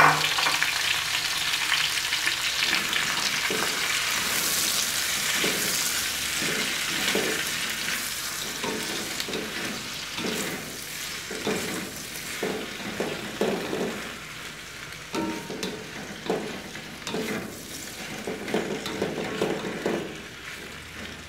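Sliced cucumber sizzling in a hot wok with fried garlic and dried shrimp, stirred and scraped with a wooden spatula. The sizzle is loudest just after the cucumber goes in and dies down steadily, leaving the irregular scrapes and knocks of the spatula against the wok.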